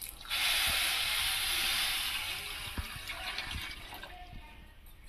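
Water poured from a steel tumbler into a stainless steel pot of sugar, splashing onto the sugar to start a sugar syrup. The pour starts a moment in, runs strongly for about two seconds, then tapers off.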